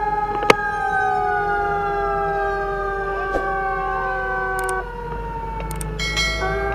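Fire truck siren slowly winding down in pitch, cutting off, then starting to rise again near the end, over the steady low rumble of the truck's engine. A single sharp click about half a second in.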